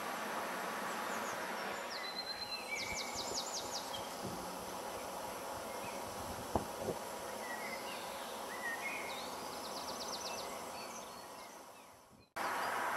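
Steady outdoor background noise from an urban roadside site, with high chirping trills twice and a single sharp click about six and a half seconds in. The noise fades away near the end.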